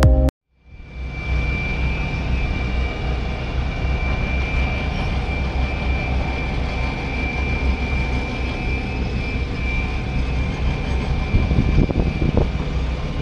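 Heavy construction machinery running on a building site, an excavator and a tipper truck with its body raised, heard as a steady low rumble with a steady high whine over it, starting just under a second in.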